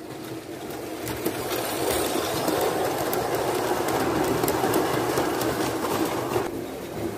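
Gauge 1 model steam locomotive and coaches running along the track past the microphone: a steady mechanical rattle with light clicks from the wheels, growing louder as the train comes close. The rattle drops off sharply about six and a half seconds in as the train moves away.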